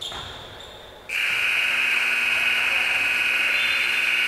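Gym scoreboard buzzer: one long, loud buzz that starts suddenly about a second in and holds steady.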